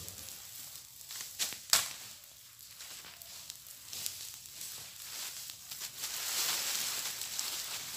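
A dry stick being handled and broken: light cracks, and one sharp crack just under two seconds in. Dry leaf litter rustles and crackles near the end.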